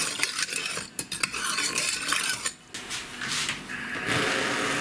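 Metal spoon clinking and scraping in a pan while sugar and water are stirred for burnt-sugar candy. About four seconds in, a steady hiss sets in.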